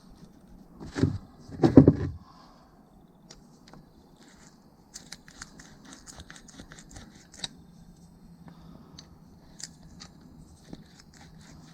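Two knocks, then a quick run of small metallic clicks: the freshly greased worm drive of a quad bike's rear brake being worked back and forth by hand.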